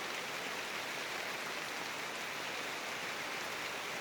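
Steady heavy rain falling in large drops, an even hiss of rain hitting the ground and foliage.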